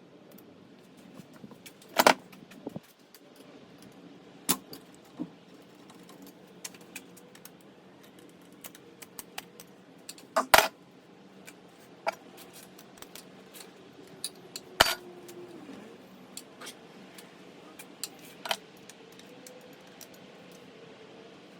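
Metal hand tools and engine parts clinking and clattering during an engine teardown: scattered sharp clicks, with a few louder clanks standing out.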